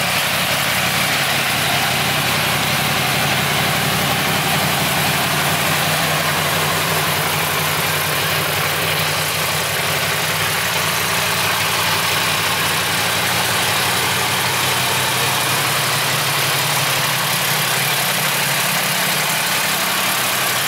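Yamaha R1M's 998 cc crossplane inline-four engine idling steadily, with no revs.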